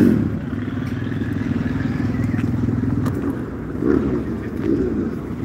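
Motocross motorcycle engines running at the track, a steady drone with a loud surge right at the start and two shorter ones a little after the middle.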